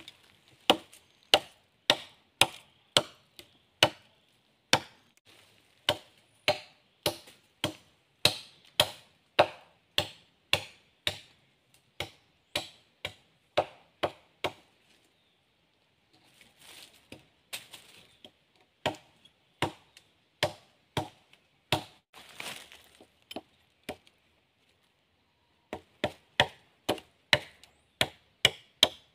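Machete chopping wood against a weathered, partly rotten log: a run of sharp, separate strokes about two a second, broken by a few short pauses, then quicker strokes near the end.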